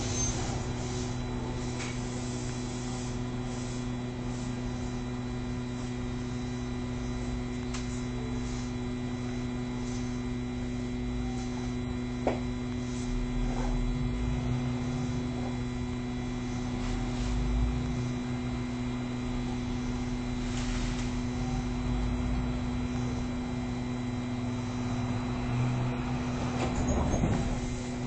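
Steady electrical hum inside a stopped Fukui Railway Fukubu Line tram car, with a low rumble underneath, the onboard equipment running while the car stands waiting.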